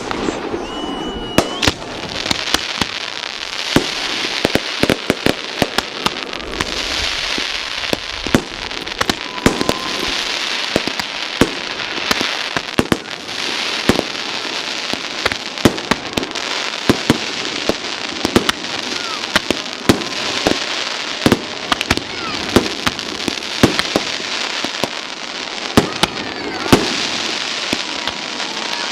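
Fireworks display: a quick, continuous run of bangs, dozens of them, with crackling between the explosions.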